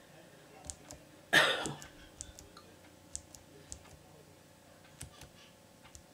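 Scattered sharp clicks of a computer mouse and keyboard as presentation slides are flipped through. One short, loud noisy burst comes about a second and a half in.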